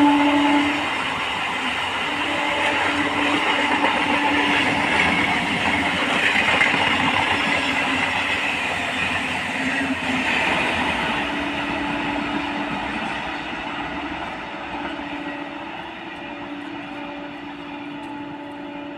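MEMU electric passenger train passing at speed: its horn cuts off about a second in, then the rush and clatter of its wheels on the rails, loudest in the middle and fading away toward the end as it recedes.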